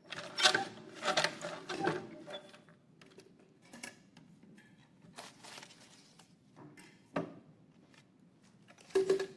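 Wooden lottery drum turned by hand, clattering for about two seconds, then lighter clicks and rustles as it is opened and a paper slip is drawn out, with a sharp knock near the end.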